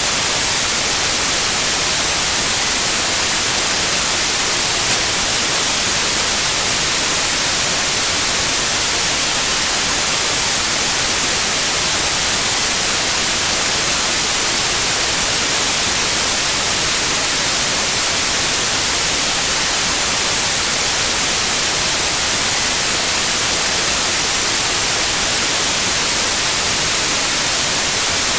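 Steady synthetic white noise, an even hiss, used as tinnitus sound therapy. About two-thirds of the way through, a high, steady pure tone at 9645 Hz joins it, the tone being matched to the tinnitus pitch.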